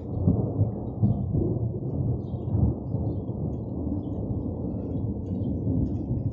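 Thunder rolling in a long low rumble, with stronger swells in the first three seconds that ease toward the end, over faint scattered rain ticks.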